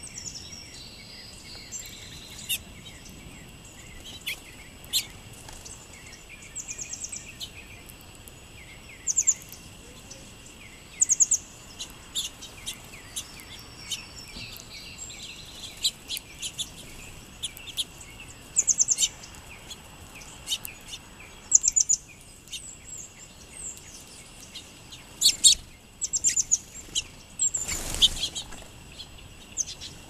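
Small songbirds, house finches and sparrows among them, chirping while they feed at a seed-covered wooden picnic table: short high chirps and quick trills, mixed with sharp taps on the wood. A short whoosh of wings about two seconds before the end.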